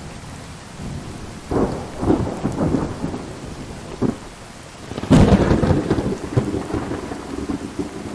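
Heavy rain pouring steadily during a thunderstorm, with thunder rumbling from about a second and a half in, then a sharp, loud thunderclap about five seconds in that rolls away into a rumble.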